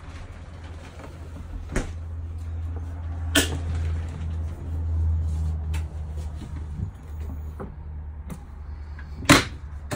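Cupboard and fridge doors in a caravan being opened and shut: a few sharp knocks and clicks, the loudest near the end, over a steady low hum.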